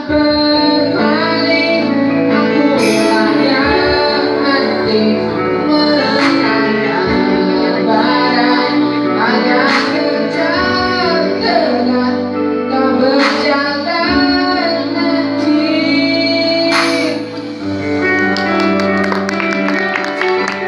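A young male singer performs a Malay-language pop song with a live band of electric guitar and keyboard. Near the end the voice stops, and the band plays on with quick, regular guitar strumming.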